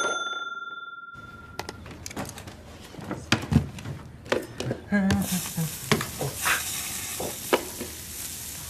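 A ringing transition chime that fades out over about a second and a half, then scattered clicks and taps, and from about five seconds in a steady sizzle like food on a hot grill.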